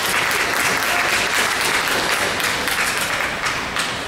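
Applause in a gymnasium after a volleyball rally ends: many hands clapping, dying down a little toward the end.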